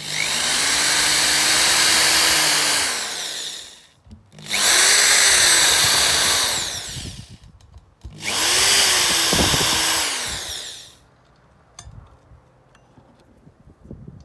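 Power drill boring pilot holes into a wooden seat through the holes of a metal mounting plate: three runs of about three seconds each, the motor whine rising as it spins up and falling as it winds down each time. Faint light clicks follow near the end as a screw is set by hand.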